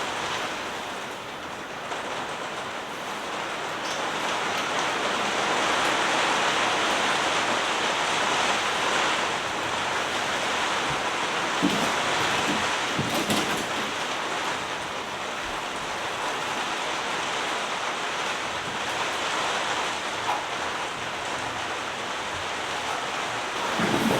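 Heavy rain falling steadily, an even hiss that swells slightly a few seconds in, with a few brief knocks about halfway through.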